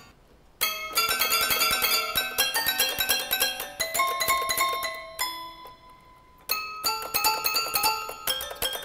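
Robot toy piano playing a quick tune, its electromagnetic solenoids flicking hammers against metal tines so that each note rings like a small bell. Playing starts about half a second in, stops for about a second and a half a little past the middle while the last notes ring on, then resumes.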